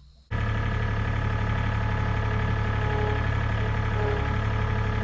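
A vehicle engine running steadily at close range, starting abruptly a moment in.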